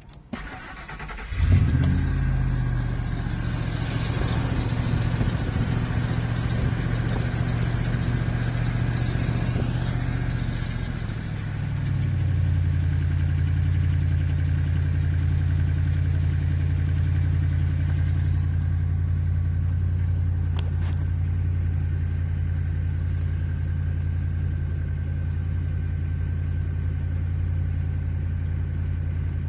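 A 1998 Ford Expedition's 5.4-litre Triton V8 cranks briefly, catches about a second and a half in and runs at idle with a clicking noise at startup, which the owner thinks sounds like low oil pressure letting the timing chain tensioners go slack, or else an oil restrictor. The idle changes and settles to a steadier note about eleven seconds in.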